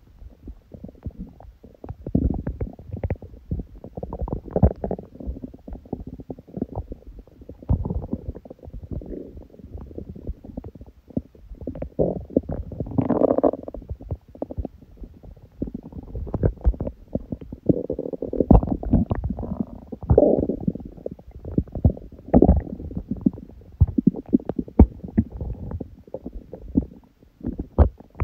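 An empty human stomach growling from hunger: a continuous, irregular run of low rumbles with rattling, bubbling gurgles and pops. The bubbling swells louder about halfway through and again a few seconds later.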